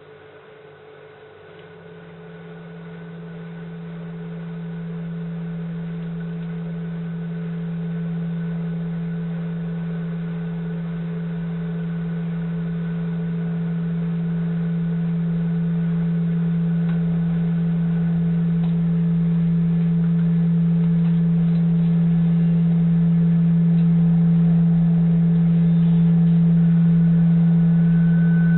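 A low droning hum on one steady pitch, coming in about two seconds in and swelling slowly louder, with a fainter high whine above it that grows stronger near the end.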